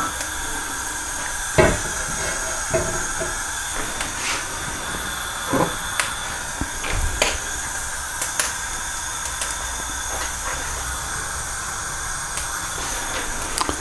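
Steady hiss of a wok with a thin film of vegetable oil heating on a high gas burner, with a few faint ticks and pops scattered through. The wok is being brought up to a high temperature before the food goes in.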